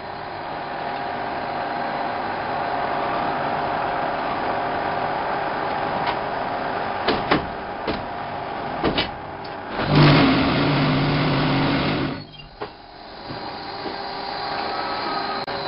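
1987 Henke Variant concrete block machine running through its production cycle: a steady mechanical din with a few sharp clanks partway through. About ten seconds in comes a loud buzzing hum of about two seconds, the vibrators shaking the mould to compact the concrete.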